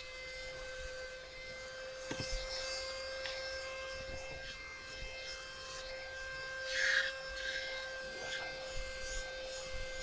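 FRESMOL 12-volt corded car vacuum running with a steady high whine. Its nozzle rubs and scrapes along cloth seat upholstery, with a few light clicks, the most prominent about two seconds in and about seven seconds in.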